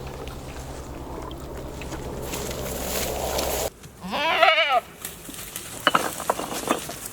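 A steady low hum stops suddenly, and a goat then gives one loud, wavering bleat about four seconds in. A few sharp clicks follow.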